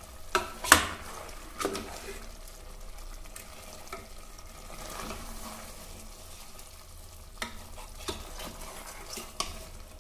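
A metal spoon stirring mutton masala in an aluminium pressure cooker, scraping and knocking against the pot several times, the loudest knock under a second in. Underneath, the masala sizzles steadily as it fries.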